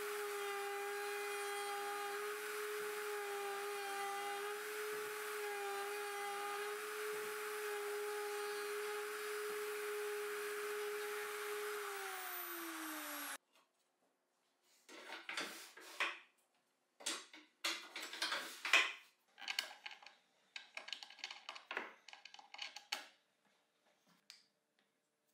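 Rotary tool on a homemade 3-axis router spinning a bit as it mills a groove in a high-pressure laminate (HPL) insert: a steady whine with slight wavers. The pitch drops as the motor spins down, and the sound cuts off about 13 seconds in. It is followed by a run of short, irregular scraping sounds.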